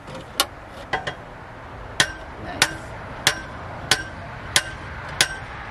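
Tall metal fence post being pounded into the ground: repeated ringing metal-on-metal strikes. Two lighter blows come first, then heavier ones at a steady pace of about three every two seconds.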